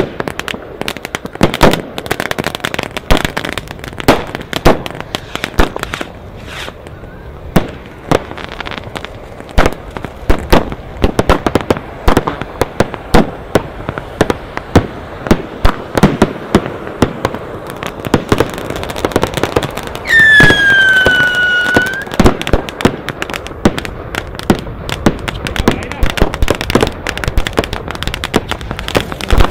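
Fireworks going off: a steady run of crackling pops and sharp bangs from a spark fountain and small aerial shells. About two-thirds of the way through, a whistling firework sounds one loud whistle lasting about two seconds.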